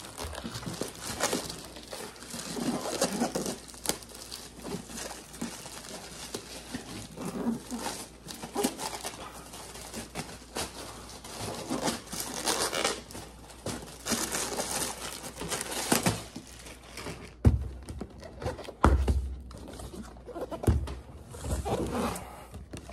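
Packaging being handled and opened: irregular crinkling and rustling of wrapping around a subscription box. Several dull thumps from the box being handled come in the last few seconds.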